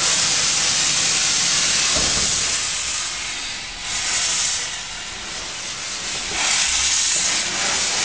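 Steam locomotive venting steam from its cylinder drain cocks as it is reversed: a loud hiss that starts suddenly, eases after a few seconds, then comes back in two more blasts, with a brief low knock about two seconds in.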